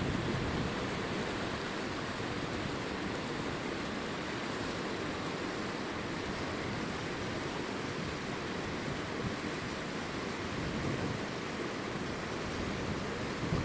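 Wind rushing across the microphone outdoors: a steady, even rush with gusty low rumble and no bird calls.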